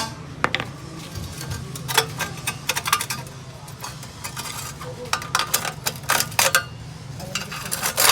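Irregular sharp metallic clinks and taps of metal striking metal, over a steady low hum.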